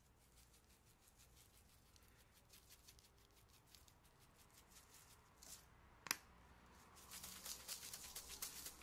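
Spice rub being shaken from a shaker bottle over a raw beef strip loin: faint quick ticks and rattles throughout, one sharp click about six seconds in, then louder, denser shaking near the end.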